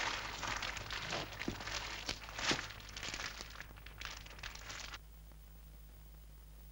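Dense crackling, crinkling noise with scattered sharp clicks, fading and then cutting off abruptly about five seconds in, leaving a faint steady electrical hum.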